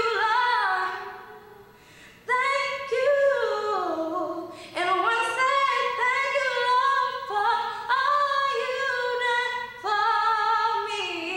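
A young woman singing solo with no accompaniment, in long held notes that slide between pitches, with short pauses for breath between phrases.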